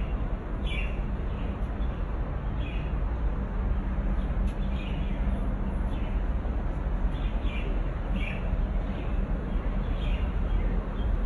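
Small birds chirping, short calls about once a second at uneven intervals, over a steady low background rumble.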